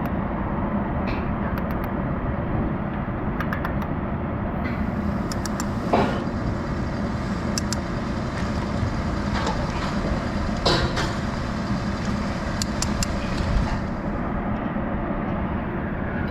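A heavy engine drones steadily, with a few sharp metallic clanks about six, eleven and thirteen-and-a-half seconds in.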